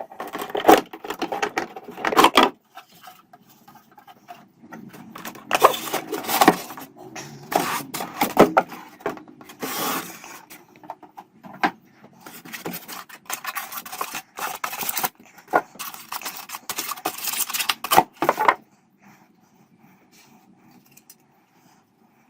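Irregular scraping, rubbing and clattering of hard objects being handled, with sharp knocks scattered throughout; it stops about three quarters of the way in, leaving only a faint background.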